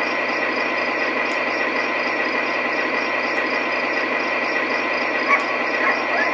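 Model ES44AC diesel locomotive's onboard sound system playing a steady diesel engine idle through its small speaker while the locomotive stands still, with a brief sharp sound about five seconds in.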